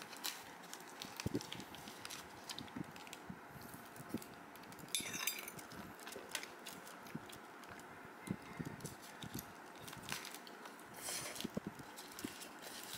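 Faint eating sounds: a metal fork picking at chicken and rice on a ceramic plate, with scattered small clicks and two brief scrapes.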